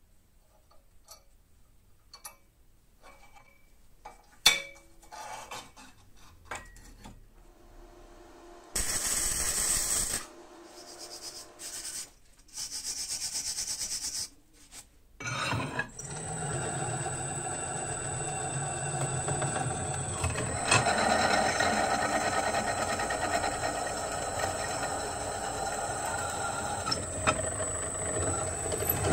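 Scattered light clinks of steel parts being handled, then two short bursts of loud noise. From about halfway, a bench drill press runs steadily with a constant high whine, its bit cutting into steel plate with a grinding, rubbing sound.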